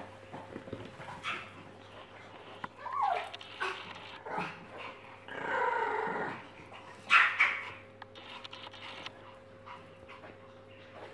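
Small white fluffy dog whining and yipping in a string of short excited calls, with a longer whine near the middle and the loudest, sharpest yelp just after it.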